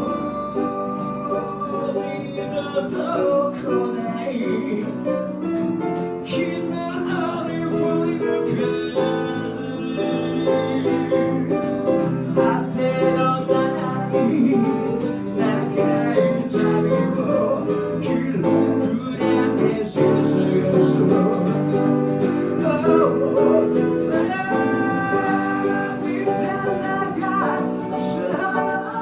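Band music with guitar playing through the song, with no transcribed lyrics: a long instrumental stretch, perhaps with some singing.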